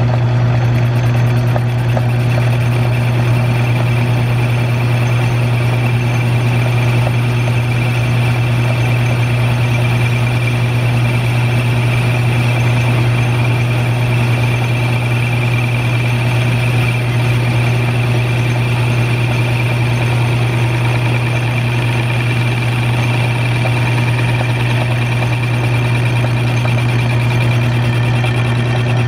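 Small electric-motor-driven lathe running steadily with a constant low hum, its tool bit taking a light cut on a spinning brass part.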